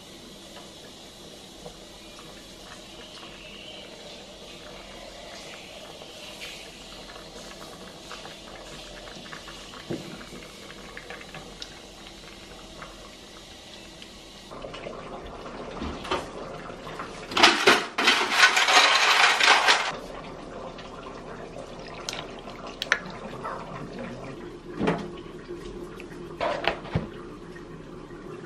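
Faint scraping of a spatula in a pot, then a drink poured into a glass over ice cubes for about two and a half seconds, loud and splashy, with clinks of ice and glass at its start and a few single clinks afterward.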